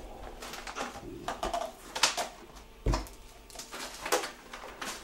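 Clicks, knocks and rattles of a PlayStation 3 console and its cables being handled and pulled loose, with a heavier thump about three seconds in.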